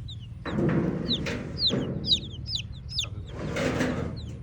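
A group of baby chicks peeping: many short, high chirps that fall in pitch, several a second. Lower, rougher sounds come in twice.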